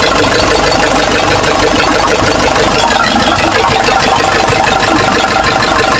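Nissan Patrol's ZD30 3.0-litre diesel engine idling steadily on one of its first runs after a top overhaul to cure leaking valves and a misfire.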